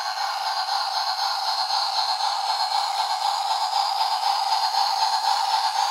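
Battery-powered toy train running round its plastic track, its built-in sound chip giving off a steady, buzzy electronic tone.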